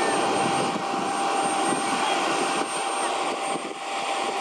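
Steady jet turbine noise: an even rush with a steady high whistling whine, dipping slightly a little after three seconds in.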